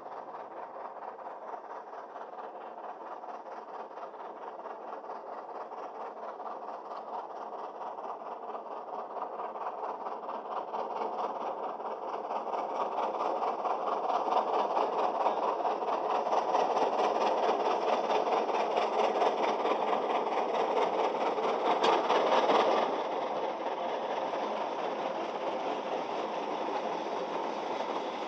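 Narrow gauge steam train running with a fast, even beat. It grows steadily louder as it comes closer, then drops off abruptly about 23 seconds in and runs on more quietly.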